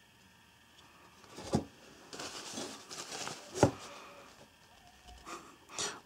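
Handling noise: a crumpled paper tissue rustling as it is handled, with two sharp knocks, one about one and a half seconds in and another about three and a half seconds in.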